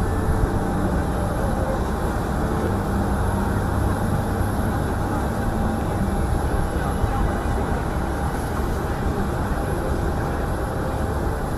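Steady low rumble and hum of outdoor airfield background noise, with no distinct event standing out.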